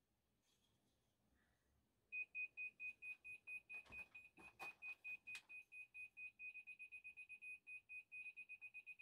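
Laser level receiver beeping: a run of short high-pitched electronic beeps starts about two seconds in and quickens near the end. A few sharp knocks fall in the middle.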